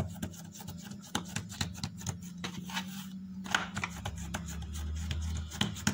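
Hands pressing and patting a disc of oiled dough flat on a countertop: many soft taps and rubs in quick succession, over a steady low hum.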